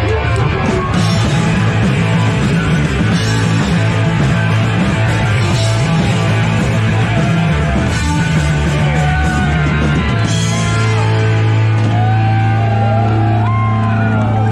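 A punk rock band playing loudly and without a break: a dense wall of distorted electric guitar over steady bass and drums.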